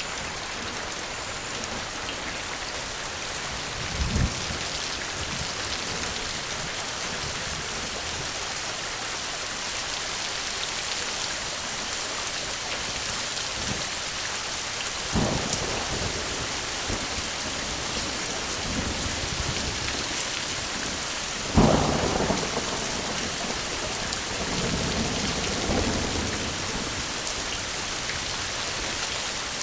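Steady rain hiss with thunder: a sudden clap about four seconds in, another at about fifteen seconds, and the loudest just after twenty seconds, followed by rolling rumbles.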